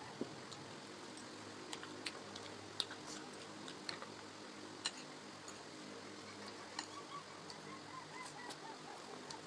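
Faint eating sounds: scattered sharp clicks and clinks of utensils and chewing, irregular and a second or so apart, over a steady low hum.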